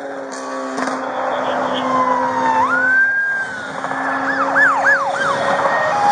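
Police car siren: a held tone that jumps higher about three seconds in and slides down, then four quick rising-and-falling yelps about a second later, over steady traffic noise.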